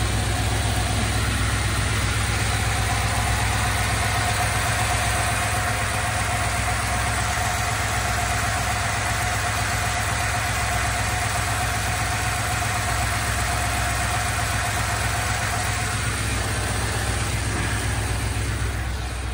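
Ford 7.3-litre gasoline V8 idling steadily shortly after a cold start, at a raised cold idle of just under 1,000 rpm. A steady whine sits over the low engine hum and fades out near the end.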